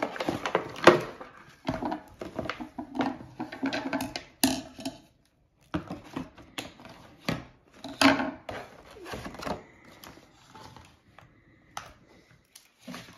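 Plastic packaging being handled and opened: a plastic bag crinkling, and a clear plastic clamshell being cut with scissors. Irregular clicks, crackles and rustles, thinning to scattered light ticks near the end.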